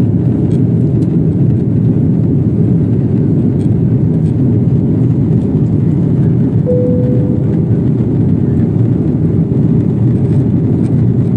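Steady low rumble inside an airliner cabin in flight: jet engine and airflow noise. A short single tone sounds about seven seconds in.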